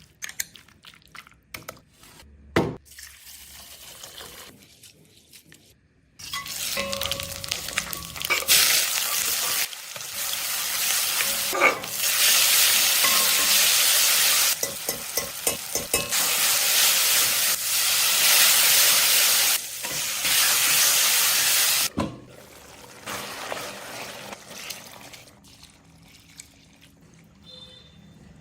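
Food frying in a hot pan: a loud, steady sizzle from about six seconds in until about twenty-two seconds, with clinks and scrapes of a spoon being stirred. Before and after the sizzle there are quieter stretches with scattered clicks.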